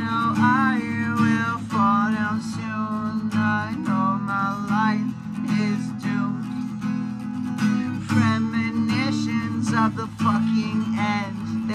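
Steel-string acoustic guitar strummed in steady chords, with a man's voice singing a wavering melody over it without clear words.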